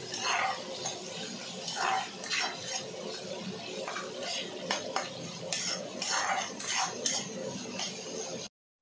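Spatula scraping and stirring green chillies frying in a black kadai, with irregular scrapes every half second to a second over a steady hiss of frying oil. The sound cuts off abruptly just before the end.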